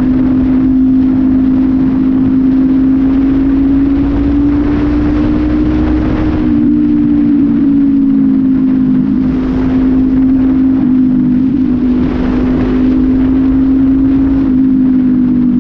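Honda CB500F's parallel-twin engine running at a steady cruise through an aftermarket PureSound exhaust, with the air filter removed. The engine note climbs slowly for about six seconds, then eases back a little and holds.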